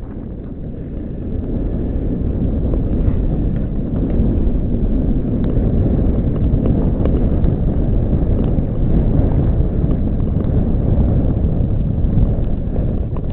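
Steady low rumble of long-distance skates gliding over clear black ice, mixed with wind buffeting the microphone. It grows louder over the first few seconds, then holds steady.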